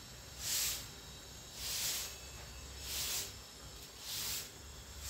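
Long-handled straw broom sweeping tiled paving: four swishing strokes, about one every second and a quarter.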